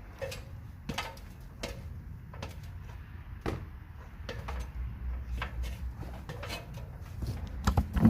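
Scattered knocks and clunks of roofing supplies and tools being handled and set down, over a low rumble, with a few louder clunks near the end.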